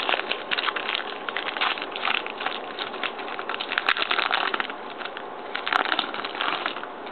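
Trading-card packs and cards being handled: a continuous run of quick crinkles and rustles.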